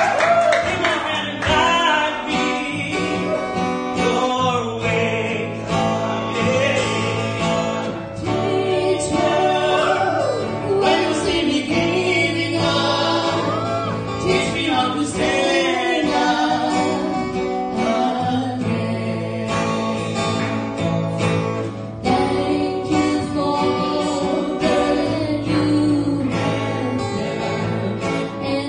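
A man and a woman singing a song together, with guitar accompaniment.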